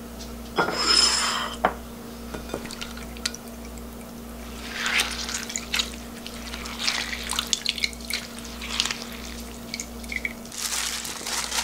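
Brine dripping and splashing back into a glass bowl as handfuls of salted cucumber slices for oiji are squeezed hard by hand, coming in irregular bursts with each squeeze.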